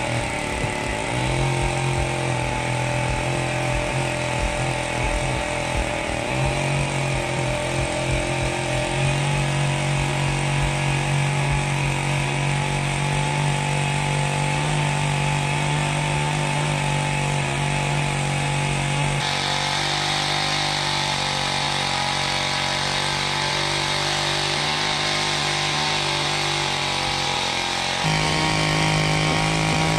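Seven-horsepower Holzfforma G660 two-stroke chainsaw engine running fast under load as it drives a Lewis MK2 winch dragging a snowmobile out of deep snow. The engine note is steady but its pitch and tone shift abruptly several times.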